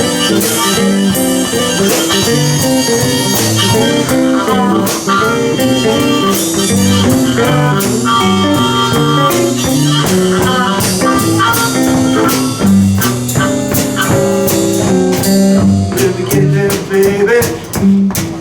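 Live blues band playing an instrumental passage between vocal lines: guitars and drum kit, with harmonica. The drum hits stand out more sharply in the last couple of seconds.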